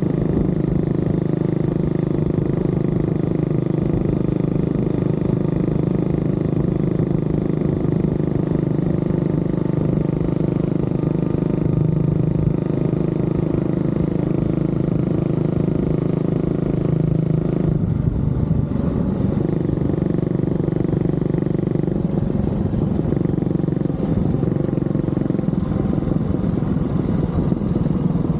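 Honda CB400SS's single-cylinder engine running while riding at a steady speed, its note changing about two-thirds of the way through.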